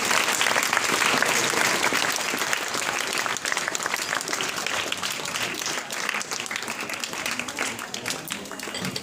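Audience applauding, many hands clapping together, slowly dying down toward the end.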